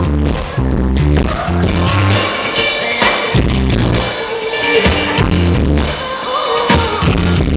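Live band music played loud through a festival PA, with a heavy bass line changing notes every fraction of a second and drums, captured with bad sound quality on a small camcorder's microphone.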